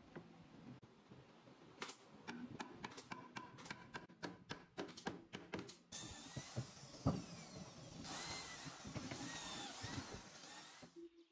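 Wooden workpieces knocking and clicking as they are handled and fitted together on a workbench. From about six seconds in, an electric drill bores holes into a wooden leg; it runs louder for the last few seconds and stops just before the end.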